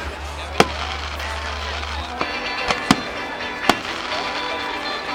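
Fireworks exploding in the air, four sharp bangs spread through a few seconds, two of them close together in the middle, over music playing in the background.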